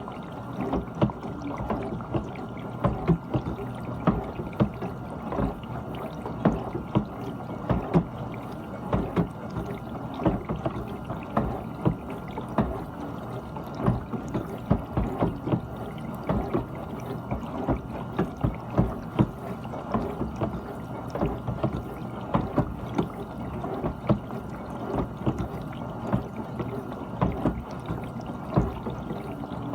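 GE dishwasher running, with water sloshing and splashing irregularly inside the tub over a steady low hum of the pump motor.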